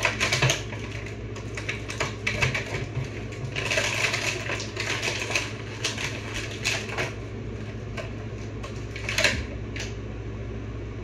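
Rapid clicking and rustling of hard plastic being handled, in irregular clusters, over a steady low hum. This fits an action figure and its packaging being worked by hand.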